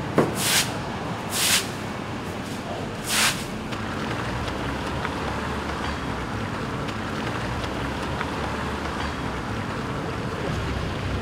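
Stiff-bristled push brooms sweeping a wet floor: three quick swishing strokes in the first few seconds. After that comes a steady wash of noise with light splashes of small feet walking through shallow floodwater.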